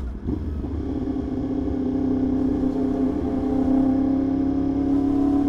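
Yamaha R1 inline-four engine running at a steady cruise, its note climbing slightly after about a second, over a low rumble of wind and road.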